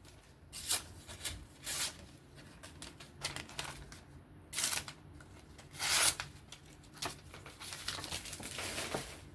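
Folding pocketknife blade slicing through a sheet of paper in several quick strokes, with the paper rustling and crinkling between cuts.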